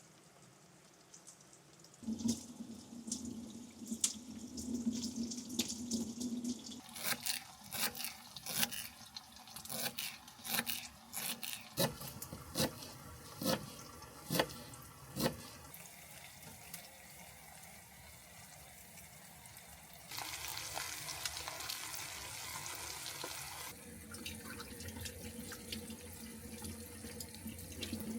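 Water running from a tap into a small sink, with a steady low hum. In the middle comes a run of sharp clicks and knocks.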